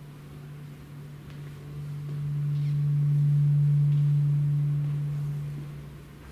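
A low, steady electronic tone, like a hum, that swells up over about two seconds, holds, then fades away near the end, part of ambient electronic music.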